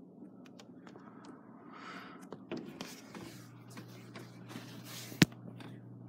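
Faint handling noise from a phone being moved, with scattered light clicks and taps and one sharper click about five seconds in. A low steady hum comes in about halfway.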